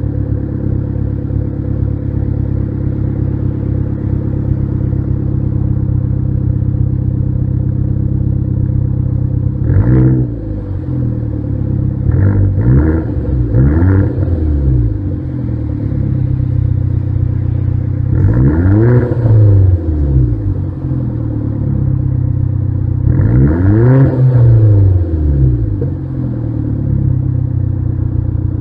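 2012 Hyundai Genesis Coupe's 2.0-litre turbocharged four-cylinder, breathing through a straight-pipe exhaust, idling with a loud drone and revved in the stationary car. There is one quick blip about ten seconds in, two quick blips a couple of seconds later, then two longer revs that rise and fall back to idle.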